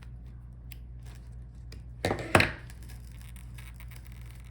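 Small handling clicks as the laptop's LCD panel and its adhesive pull tab are picked at, with two sharp taps close together about two seconds in, over a steady low hum.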